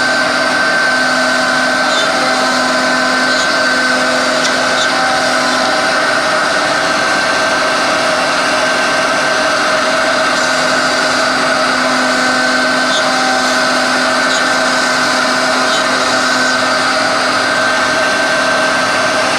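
MAGNUM II CNC router running with its spindle motor giving a steady whine over a constant hiss, with a few faint ticks.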